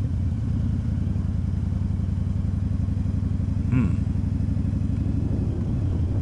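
Motorcycle engine idling steadily with a low, even, rapid pulse. A brief falling sound cuts in a little before four seconds in.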